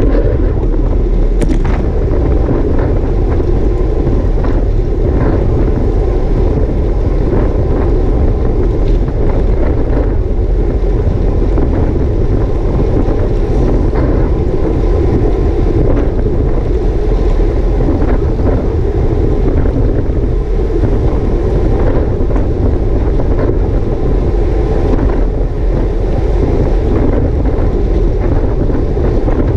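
Steady wind rush and low rumble on a road cyclist's GoPro microphone while riding, with a few faint clicks scattered through it.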